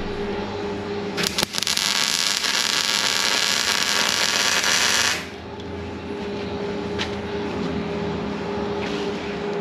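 Wire-feed welder arc crackling and sizzling as a bead is laid on steel, starting about a second in and cutting off after about four seconds. A steady hum carries on beneath it.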